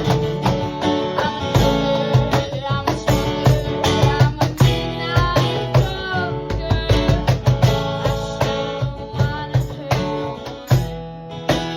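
Guitar-led band music: strummed guitar over a steady bass line, with a lead guitar playing short bent notes about five seconds in.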